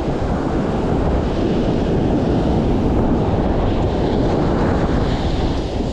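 Wind blowing across the microphone over steady ocean surf.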